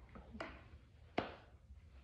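Low room hum with a few faint clicks, the sharpest just over a second in.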